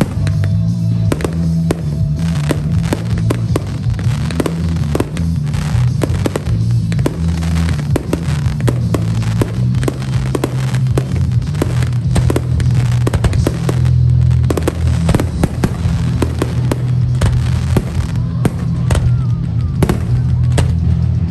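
Fireworks display: many sharp bangs and crackles in quick succession, over loud music with a heavy bass.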